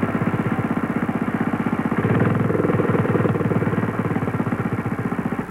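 An engine running with a fast, even chugging pulse, a little louder from about two seconds in.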